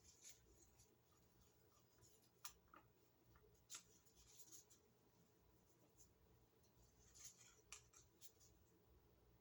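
Near silence with a few faint scrapes and light taps from handling a cup of leftover pour paint.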